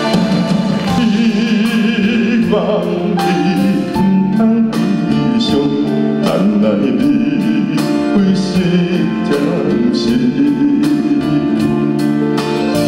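A male bass singer singing into a microphone with a wavering vibrato, over a live band with a steady drum beat.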